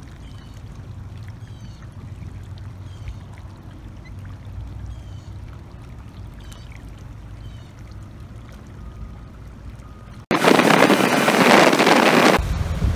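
A low steady hum with faint, short high chirps. About ten seconds in it cuts suddenly to a small motorboat under way, loud with wind rushing on the microphone and water rushing past the hull.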